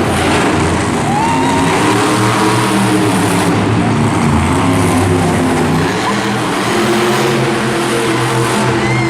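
Monster truck engine running loudly and continuously, its pitch wavering a little.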